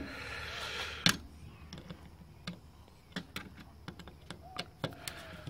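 Scattered light clicks and taps of a PC power supply's metal casing, board and wiring being handled, with a brief rustle at the start and one sharper click about a second in.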